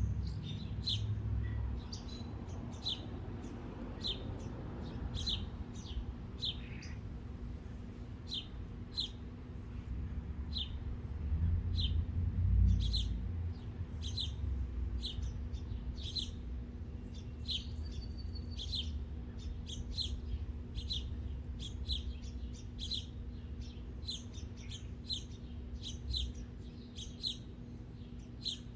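Small birds chirping: short, high single chirps, roughly one a second, over a low rumble that swells about twelve seconds in and a faint steady hum.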